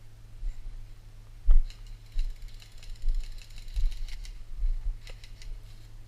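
Airsoft guns firing, heard as a fast mechanical clatter of rapid clicks starting about a second and a half in and lasting about two and a half seconds, with a shorter burst about five seconds in. A sharp knock comes just before the first burst, and low thumps of gear handling on the microphone run throughout.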